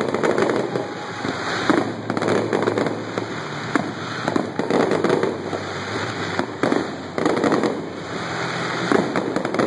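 Aerial fireworks going off: a string of sharp bangs every second or so, with dense crackling between them.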